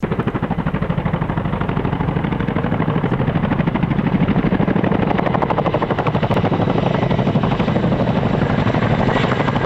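Several CH-47 Chinook twin-engine, tandem-rotor heavy-lift helicopters flying low overhead: the loud, rapid, even beat of their rotor blades, holding steady throughout.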